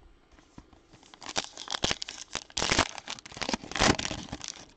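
A 2021-22 Donruss basketball card pack's wrapper being torn open by hand and crinkled, a run of irregular crackles that builds about a second in and stops just before the end.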